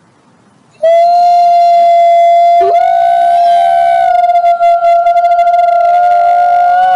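Wolf howling: a long, steady, high howl starts abruptly just under a second in. About two and a half seconds in, a second howl glides up from low to just above the first, and the two are held together to the end.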